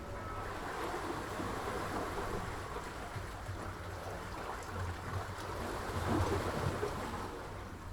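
Sea waves washing in a steady rush, swelling louder about six seconds in.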